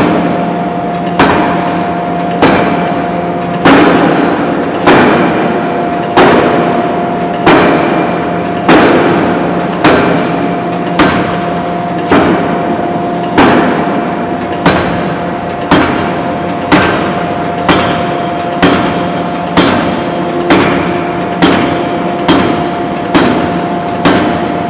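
A C61Y-105 hydraulic forging hammer (105 kJ blow, 3.75-tonne ram) striking a hot steel anchor-chain blank in open-die forging. The heavy blows land at an even pace of about one every 1.2 seconds, each ringing briefly, over a steady machine hum.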